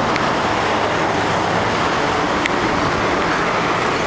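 Steady rushing noise of riding along on a bicycle with the camera, with a low hum underneath and a couple of light clicks.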